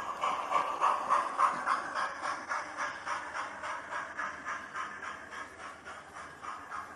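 Steam locomotive chuffing: a fast, even beat of hissing exhaust beats that slows slightly.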